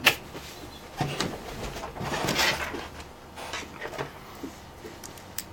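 Handling noises on a work desk: a few sharp clicks and a short scraping rustle about two seconds in, as wires and tools are handled.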